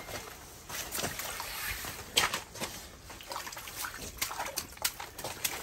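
Water splashing and sloshing in a slushy ice fishing hole as a lake trout is released back down through it, a string of short splashes with the loudest about two seconds in.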